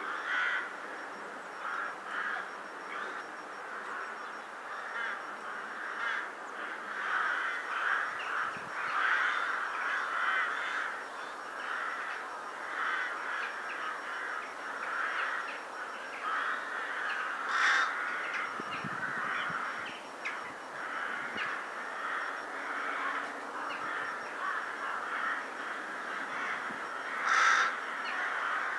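A large flock of rooks cawing, many calls overlapping into a continuous chorus, with a louder single caw about two-thirds of the way through and another near the end. It is the noise of a winter gathering before going to roost at dusk.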